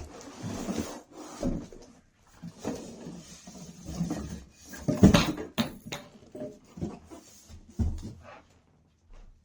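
Cardboard box and packing being handled as a water dispenser is pulled out of its carton: irregular rubbing and scraping with several knocks, the loudest thump about five seconds in.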